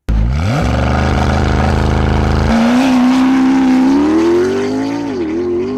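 High-performance car engine cutting in with a quick upward rev, then pulling hard under acceleration with its pitch climbing slowly and dipping briefly near the end, as at a gear change.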